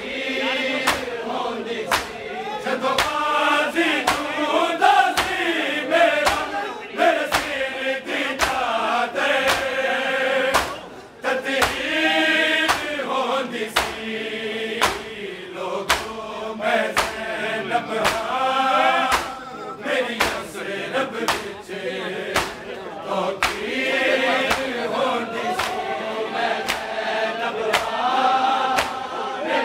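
Men chanting a Punjabi noha (Shia lament) together, led by a reciter, over a steady beat of hands striking chests in matam a little more than once a second. The chant breaks off briefly about eleven seconds in.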